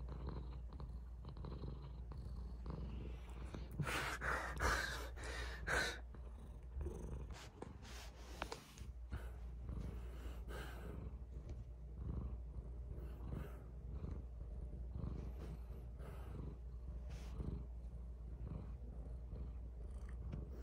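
Domestic cat purring steadily close to the microphone, with a few brief louder rustling sounds about four to six seconds in.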